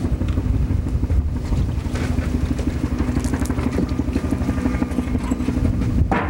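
An engine running steadily, with a brief louder sound near the end.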